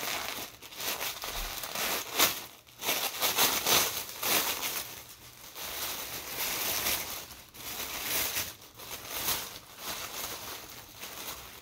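Thin tissue wrapping paper crinkling and rustling as it is pulled open and crumpled by hand, in uneven bursts with short pauses.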